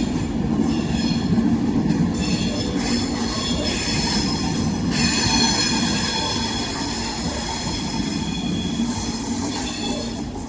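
A train running past, its wheels squealing on the rails over a steady rumble, fading slowly toward the end.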